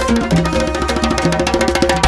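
Upbeat background music with a quick, steady percussion rhythm and bright plucked or keyed notes.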